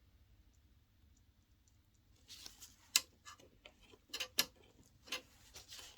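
Irregular small clicks and taps starting about two seconds in, the sharpest about a second later and twice more near four and a half seconds: a small container of nail caviar beads being picked up and opened.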